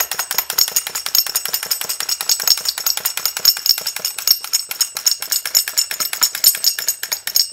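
Mechanical plush toy chicken shaking in motion, its mechanism rattling in a rapid run of sharp clicks, about ten a second, under a thin high metallic jingle.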